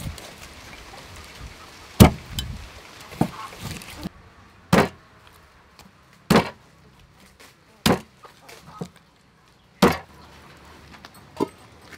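Cleaver chopping snakehead fish into steaks on a wooden chopping board: single sharp chops about every one and a half seconds, seven in all.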